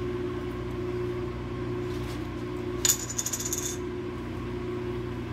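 Microwave oven running with a steady hum, with a brief metallic jingle about three seconds in.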